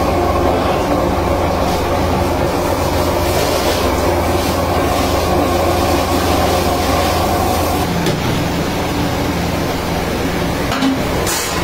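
Electric mincer-type grinder running steadily with a loud low hum, forcing yellow dough out through its plate in strands. About two-thirds of the way through, its higher tones drop away and a lower hum carries on.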